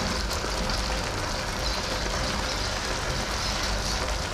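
Chop suey vegetables sizzling steadily in a pan of thickened sauce on the stove.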